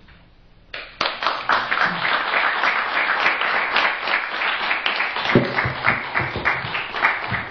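Audience applauding: many hands clapping together, starting about a second in and dying away near the end.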